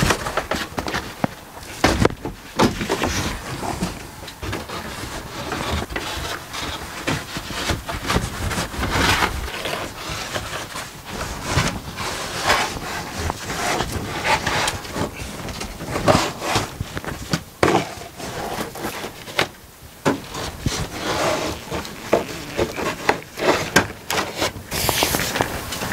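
Large ProMaster van headliner panel being worked up into place overhead: irregular scraping, rubbing and short knocks as the panel is pushed and slid against the roof framing and trim.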